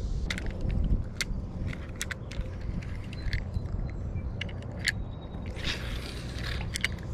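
Scattered sharp clicks and light knocks as a spinning rod and reel are handled aboard a plastic fishing kayak, over a steady low rumble, with a brief hissing rush about six seconds in.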